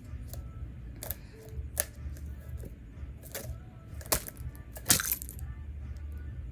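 Small plastic toys being handled: a handful of sharp clicks and taps, the loudest about four and five seconds in, over a low steady rumble.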